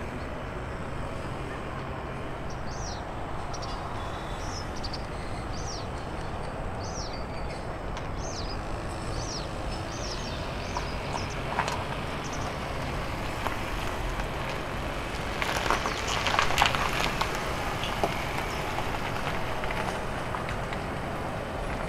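Airport ambience: a steady wash of distant aircraft and ground-traffic noise, with a small bird giving short, repeated high chirps through the first ten seconds or so. About 16 seconds in, a brief louder clattering rises over it.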